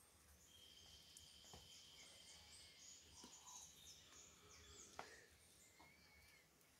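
Near silence: faint birds chirping in the background, with a couple of soft taps.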